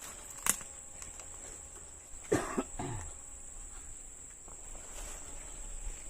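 Insects chirring as one steady high-pitched tone, with a sharp click about half a second in and a person's short cough, in two bursts, about two and a half seconds in.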